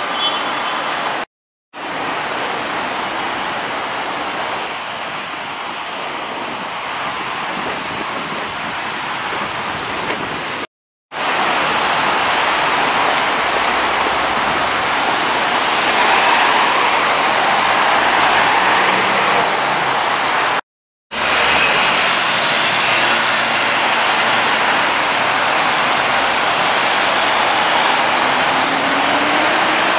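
Steady hiss of a light sun shower mixed with cars driving on a wet city street. The sound drops out completely three times, briefly each time.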